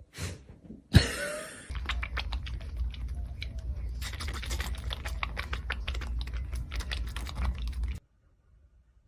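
A sharp knock, then several seconds of fast, irregular clicking and tapping over a low rumble, cutting off suddenly.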